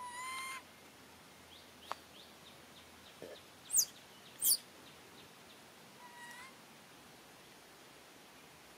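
Baby long-tailed macaque giving short, clear, whistle-like coo calls: one right at the start and a shorter one about six seconds in. Two sharp, very high chirps about a second apart near four seconds in are the loudest sounds.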